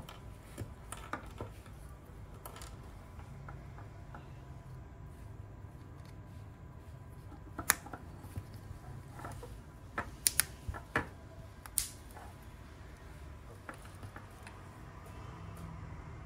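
Small plastic headband parts being handled and fitted together: quiet tapping and rubbing, with a few sharp plastic clicks, most of them in a cluster from about eight to twelve seconds in, as a white toothed ratchet ring is pressed into its mount.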